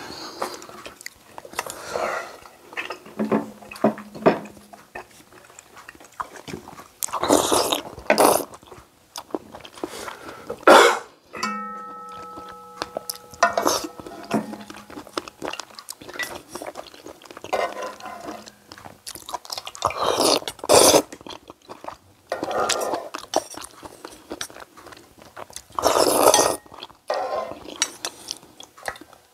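A person eating oyster and maesaengi seaweed noodle soup: repeated loud slurps and chewing, with utensils clinking against the bowl. About twelve seconds in, a brief pitched ringing tone sounds for about two seconds.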